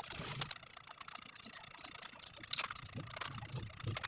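Faint handling sounds of desoldering potentiometers from an amplifier's front panel: scattered small clicks and soft taps as hands and a soldering iron work at the pots and their wires.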